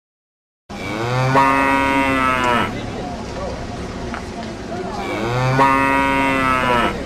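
A person's voice making two long, drawn-out, moo-like calls of about two seconds each, the second a second or two after the first.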